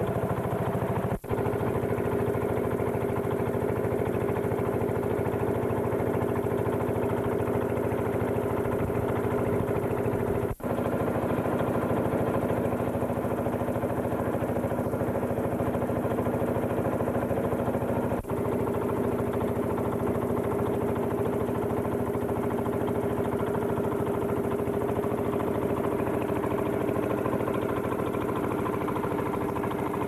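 An engine running steadily at an even pitch, with three very brief dropouts.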